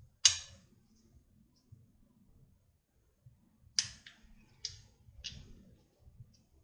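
Sharp metallic clicks from a torque wrench on the crankshaft main bearing cap bolts of a Mazda Miata 1.8 engine, on the second tightening pass at 42 ft-lb. There is one click about a quarter second in, then three in quick succession past the halfway point, less than a second apart, and a faint one near the end.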